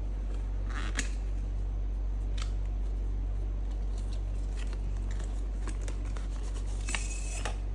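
Cardboard product packaging being handled and opened: scattered light clicks and rustles, a short scrape about a second in and a louder rasp near the end, over a steady low electrical hum.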